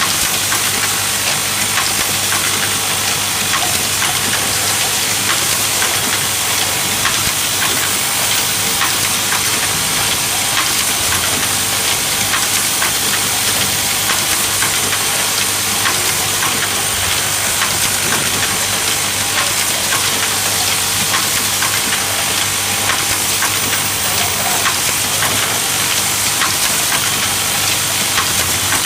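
Automatic hanger assembly machine running steadily: vibratory bowl feeders humming under a constant hiss, with faint repeated clicks of parts being fed and pressed.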